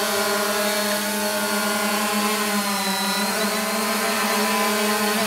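Multicopter drone's electric motors and propellers humming steadily in flight, holding altitude. The pitch sags slightly and recovers about two to three seconds in.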